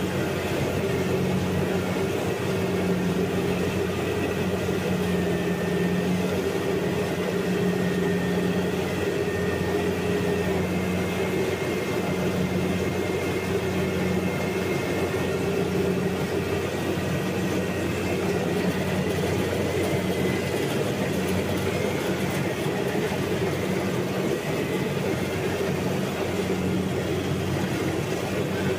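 Combine harvester running steadily: an even engine drone with a faint high whine over it.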